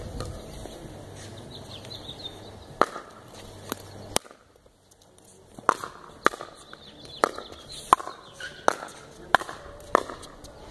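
Pickleball rally: sharp pocks of paddles hitting the hollow plastic ball, a few spaced hits early, then a quick back-and-forth run of hits less than a second apart in the second half.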